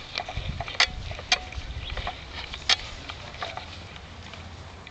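Outdoor ambience with a low rumble on the microphone for about the first two seconds and three short, sharp clicks, then a faint steady hiss.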